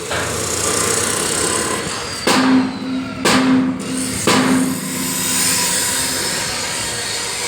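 Stick-welding arc crackling and hissing steadily, interrupted briefly a few times near the middle.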